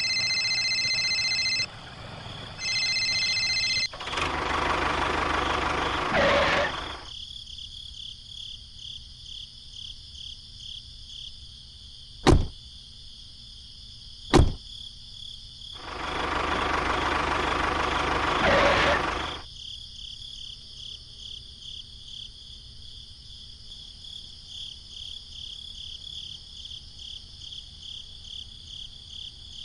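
A small electric motor whirring steadily with a fast ripple. Two louder noisy stretches of a few seconds each come near the start and about halfway. Two sharp clicks fall between them, and a few steady beeping tones open it.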